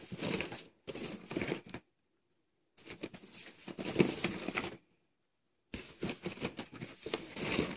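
Rustling and crinkling of small plastic hair ribbons being picked through and handled in a plastic toy tray. The sound comes in four stretches with two short silent pauses between them.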